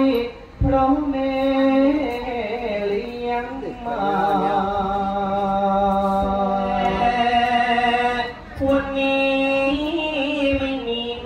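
A solo voice singing slowly in a chant-like style, with long held notes that waver in pitch, one held for about four seconds, and short breaths between phrases.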